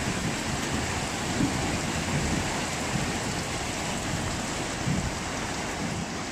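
Steady downpour of rain during a thunderstorm.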